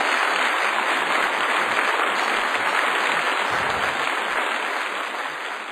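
A crowd applauding, a dense steady clapping that begins to fade near the end.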